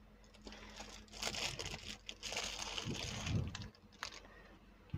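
Clear plastic packaging bag crinkling as a handheld two-way radio is pulled out of it, in irregular crackles from about a second in until near the end.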